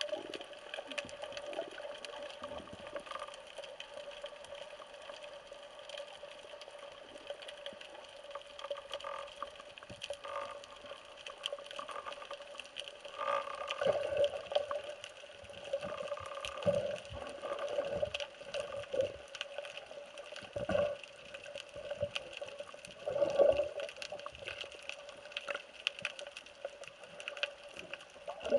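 Muffled underwater sound picked up through a waterproof camera housing: water moving and sloshing with irregular soft knocks and swells over a faint steady hum.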